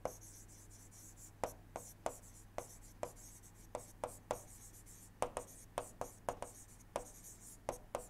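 Pen stylus tapping and scratching on a tablet screen while words are handwritten: irregular light taps, a few per second, with a low steady hum underneath.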